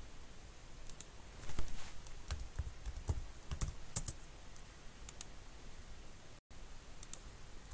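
Typing on a computer keyboard: irregular single keystrokes, most of them in the first two thirds.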